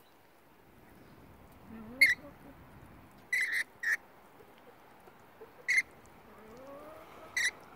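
Rainbow lorikeets giving short, sharp screeching calls, about six of them in quick, irregular bursts, three close together in the middle.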